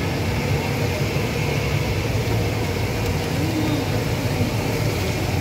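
Potato chips frying in a deep, sunken well of hot oil: a steady bubbling hiss over a low, even rumble.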